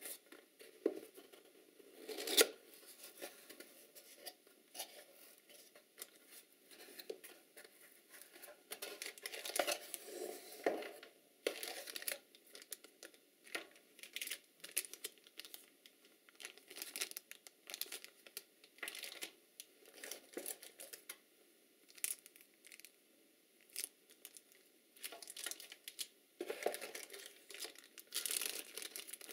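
Plastic bags crinkling and cardboard rustling as a small accessory box is opened and bagged cables and a power adapter are lifted out and handled: a steady run of short, sharp rustles and clicks, loudest about two seconds in.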